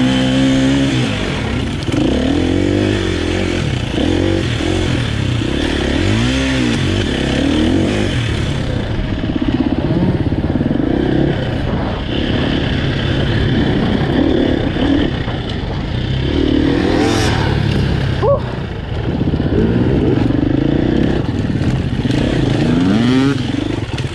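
KTM EXC-F 250 four-stroke single-cylinder dirt bike engine heard up close from on the bike, revving up and falling back again and again as it is ridden over dirt climbs and drops, with a short easing of the throttle about three-quarters of the way through.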